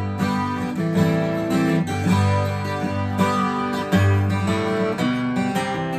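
Twelve-string acoustic guitar strumming chords in an instrumental break, with a bass note struck about once a second.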